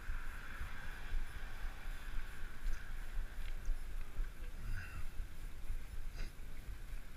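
Wind buffeting the microphone of a camera on a moving bicycle: a continuous, unsteady low rumble with a steady hiss above it. There is one short click about six seconds in.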